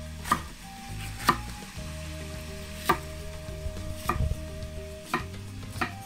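Chef's knife slicing a green bell pepper on a wooden cutting board: six sharp knocks of the blade on the board, unevenly spaced about a second apart.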